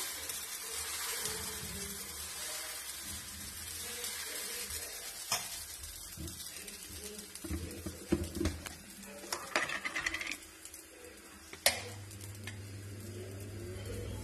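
Dosa batter sizzling on a hot griddle (tawa) as it is spread with a ladle and left to cook, the hiss slowly thinning. A few sharp knocks of utensils in the second half, the loudest near the end.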